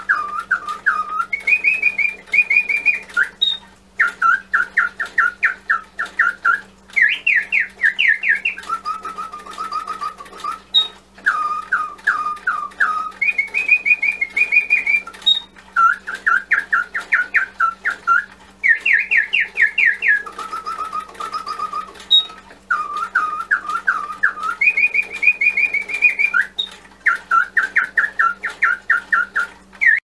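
Bontems singing bird automaton clock, its bellows-blown piston whistle playing an imitation bird song. The song comes in phrases of quick trilled and chirped notes that move between a low and a higher pitch, and the whole sequence repeats about every 11 seconds over a faint steady hum.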